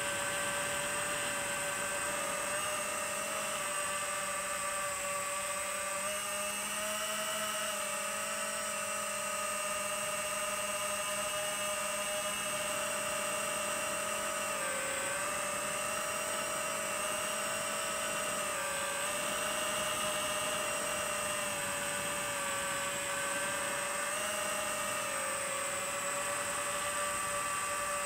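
Brushless motors and propellers of an FPV quadcopter whining steadily in flight, picked up by the drone's onboard DJI HD camera. The pitch dips briefly about three times as the throttle changes.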